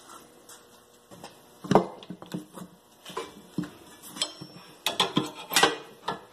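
Steel tire spoon clinking and knocking against a steel wheel rim and the tire changer's mount head as it is worked in under the tire to catch the bottom bead. Irregular metal clanks, the loudest about two seconds in and another near the end.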